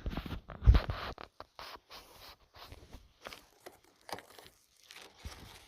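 A bat being slid out of its long box: irregular scraping and rustling of the box and packaging, with a thump about three-quarters of a second in.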